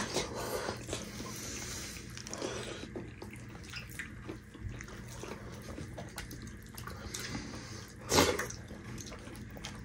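Close, faint wet eating sounds: chewing, squelching and lip smacks as soft dhido with nettle (sisnu) soup is eaten by hand, with one louder smack about eight seconds in.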